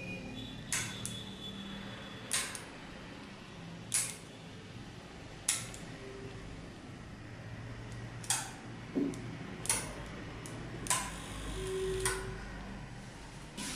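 Electromechanical relays on a 4-channel relay module clicking as they switch light bulbs on and off, together with the clicks of the transmitter's micro switches being pressed. The sharp single clicks come one every one to three seconds.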